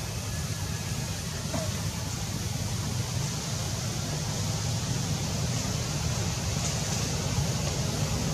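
Steady outdoor background noise: a continuous low rumble under an even hiss, with no distinct events.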